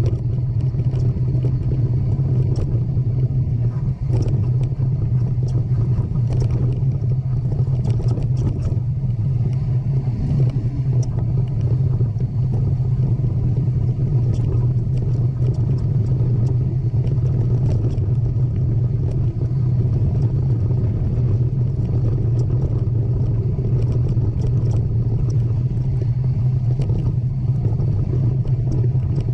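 A steady, loud low rumble with scattered light clicks and rattles over it.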